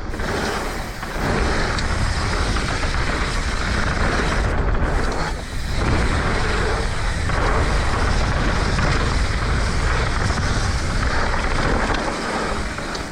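Wind rushing over a bike-mounted action camera's microphone and mountain bike tyres rolling fast over a dirt trail, a steady loud noise with short dips about five and seven seconds in.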